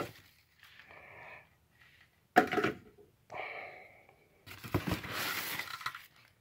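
A plastic bag rustling and crinkling in bursts as silver Dodge Ram 2500 wheel center caps are pulled out of it. There is a sharp clack of caps knocking together about two and a half seconds in, and a longer crinkling stretch near the end.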